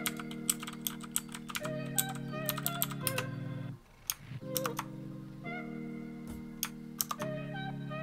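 Outemu Blue clicky switches on a Hiwings HI200 mechanical keyboard clicking as keys are pressed, singly and in quick little runs. Under them runs background music of sustained chords that change every second or two and break off briefly about four seconds in.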